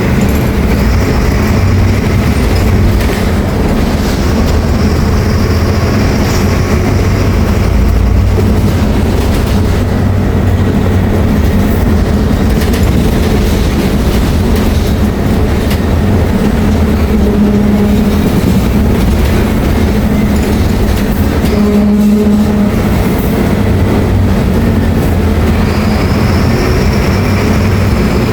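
Diesel engine of a Mercedes-Benz OF-1724L BT5 city bus running loudly and continuously. Its note shifts a few times through the middle.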